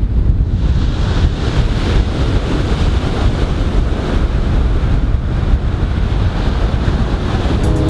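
Wind buffeting the microphone over the sound of ocean surf: a loud, steady rumbling rush.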